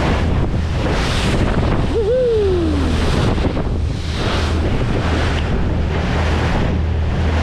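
Bow of a party fishing boat running through a shrimp boat's wake: water surging and splashing against the hull in rolls about a second apart, with wind buffeting the microphone over the steady low drone of the boat's engine. A short falling cry sounds about two seconds in.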